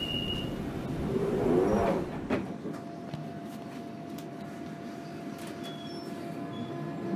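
London Underground Central line train running, its noise swelling to its loudest about two seconds in. It then drops abruptly to a quieter steady hum with a faint held tone.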